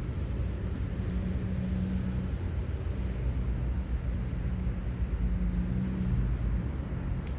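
Low, steady rumble of a distant engine, with a faint hum that comes and goes.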